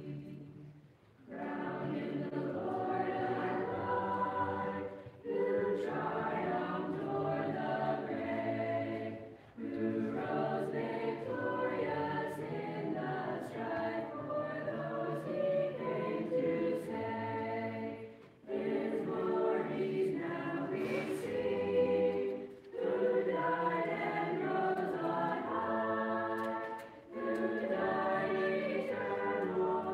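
Mixed choir of boys and girls singing a cappella in harmony, in long phrases with short breaks for breath between them.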